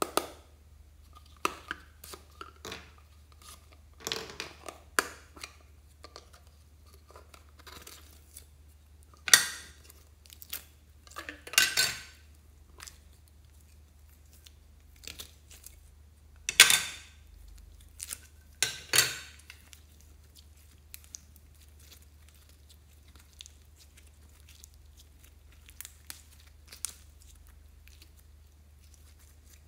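Plastic lollipop-shaped slime containers being handled and opened over a glass bowl: scattered sharp clicks and taps of hard plastic. There are four louder short scraping, squelching bursts as slime is pushed out of the containers.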